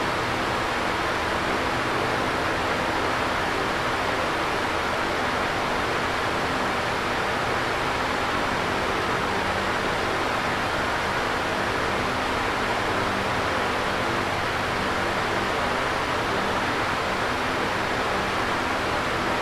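Electric fan running steadily: an even rushing air noise, with a faint low motor hum under it.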